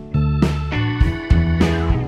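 Background music: an instrumental track led by plucked guitar notes over a steady bass line.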